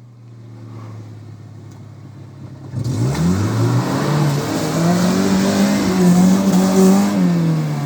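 Off-road 4x4's engine idling, then about three seconds in revved hard in first gear on a muddy climb, the pitch rising and holding high, with a rushing hiss of tyres spinning in mud. Near the end the revs drop as the throttle is eased off.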